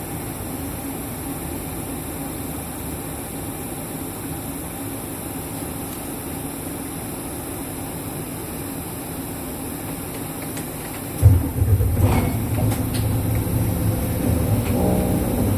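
2005 Isuzu Erga KL-LV834L1 city bus heard from inside the cabin: its diesel engine runs steadily at low level, then about eleven seconds in the sound suddenly jumps and stays much louder as the engine takes up load and the bus moves off.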